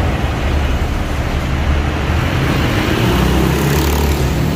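Busy road traffic going by, a steady rumble of passing cars, with a louder vehicle engine passing about three seconds in.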